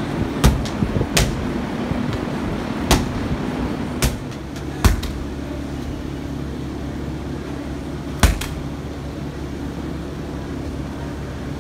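Medicine balls hitting a wall in rotational throws: about half a dozen sharp thuds at uneven intervals, one of them a quick double, over a steady low hum.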